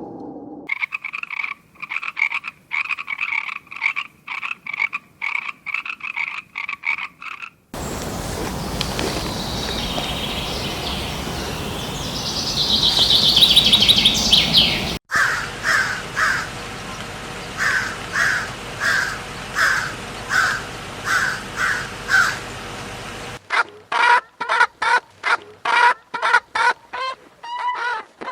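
A series of short animal calls, repeated about twice a second, broken by a stretch of noisier sound in the middle. Near the end the calls come faster.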